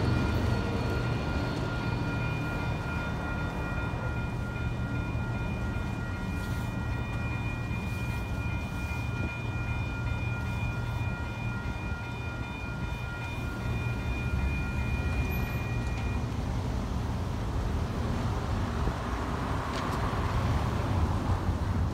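Railroad grade-crossing bell ringing steadily over the low rumble of the train that has just passed; the bell stops about three-quarters of the way through as the gates finish rising, and a car then drives across.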